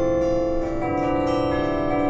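Instrumental music of held, ringing bell-like notes, with the notes changing a little under a second in.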